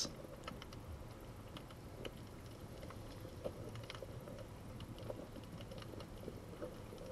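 Faint underwater ambience: a low, even hiss with scattered small clicks.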